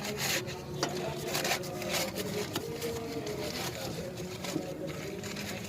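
Brush scrubbing a wet SBR latex and cement bond coat onto old concrete: a run of short, irregular scraping strokes.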